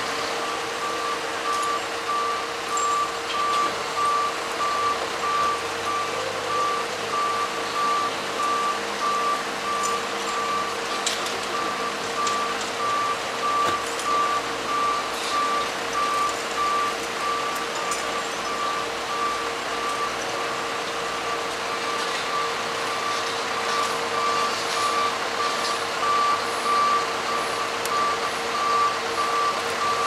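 A warning beeper sounding at an even, rapid rhythm over the steady running of a truck engine driving a truck-mounted loader crane, with a steady hum underneath.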